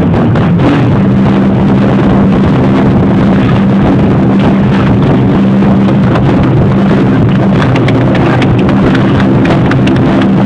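A drum ensemble playing large drums on stage: a dense, continuous run of beats with a steady low tone underneath.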